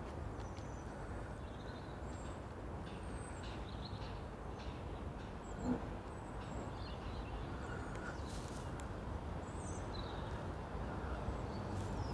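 Outdoor ambience: a steady low rumble with small birds chirping now and then, and one short thump about halfway through.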